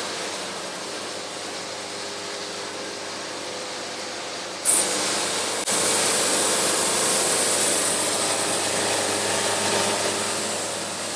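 Portable band sawmill running and sawing a log at a slow feed. A short high squeal comes a little before halfway, then the sound suddenly gets louder and hissier.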